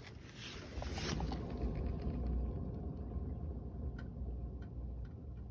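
Suzuki Alto on the move, with a steady low rumble that picks up about a second in: the wheel hub bearing noise of a worn bearing.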